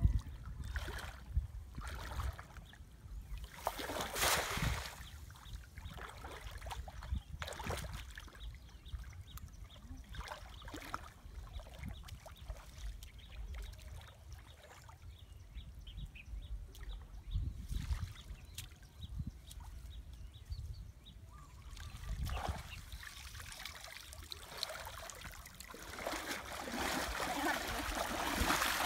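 Shallow water splashing and trickling, with scattered small knocks, growing busier and louder near the end.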